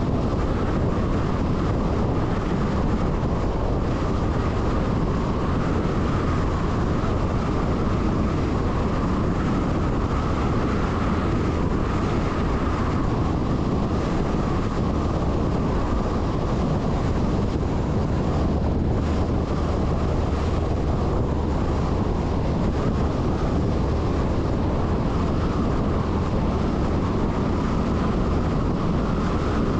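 MAN LE 280 B 4x4 truck driving at a steady speed: its diesel engine and tyre noise run evenly, with wind buffeting the microphone.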